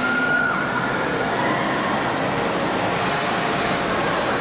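Swinging pirate-ship ride running: a steady mechanical rumble and rush, with a brief whoosh about three seconds in as the boat swings past.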